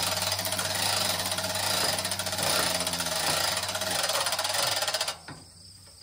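Gas string trimmer running at full throttle, its line cutting grass with a dense rattly whine, cutting off suddenly about five seconds in.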